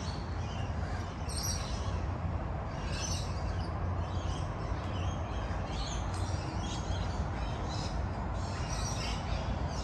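Birds chirping in short scattered calls over a steady low rumble of outdoor background noise.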